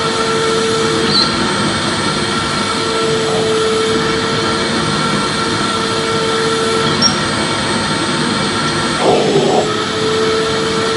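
Vacuum cleaner running steadily: a constant rushing noise with a steady whine. The whine drops out briefly about a second in and again near seven seconds. A rougher surge near the end sounds like the nozzle catching or sucking at something.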